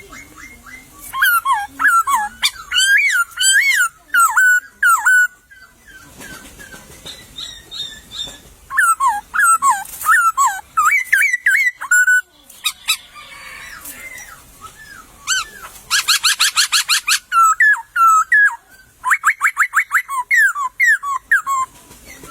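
Poksay (laughingthrush) singing loud whistled phrases of quick rising and falling notes in three bouts, with a fast rattling run of notes about sixteen seconds in.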